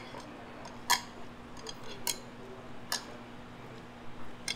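Metal chopsticks clicking against ceramic side dishes and each other: four sharp clicks, the one about a second in the loudest, over a steady low hum.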